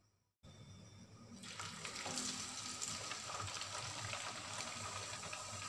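A singhara (water chestnut flour) puri frying in hot oil in a pan: a steady sizzle that starts faint after a brief cut and grows louder about a second and a half in, then holds.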